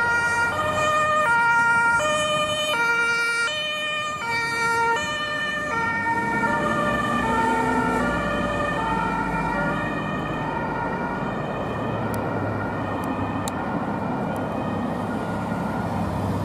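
German two-tone siren (Martinshorn) of a fire-service ambulance on an emergency run, alternating high and low about every 0.7 s. About six seconds in the pitch drops as the ambulance passes, and the siren fades and blurs as it drives away over traffic noise.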